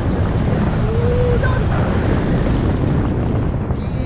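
Wind rushing and buffeting over the microphone of a paramotor pilot gliding with the motor switched off: a steady, loud rush of air with no engine running.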